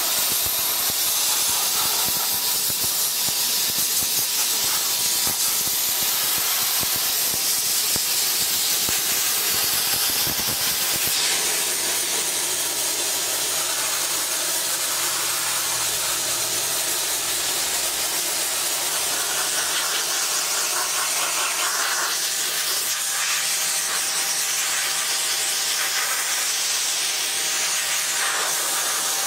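TESI 40 Eco Line sodablaster nozzle blasting baking-soda abrasive with compressed air onto weathered wood, a loud steady hiss. Its tone shifts slightly about eleven seconds in.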